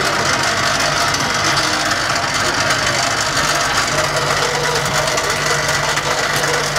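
Street popcorn machine at work: a steady mechanical hum with a dense, rapid crackle of corn popping in the kettle.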